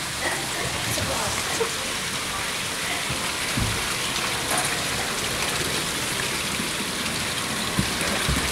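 Jets of water from the pump outlets of a scale-model barrage splashing steadily into the channel below. A few dull low knocks come through around the middle and near the end.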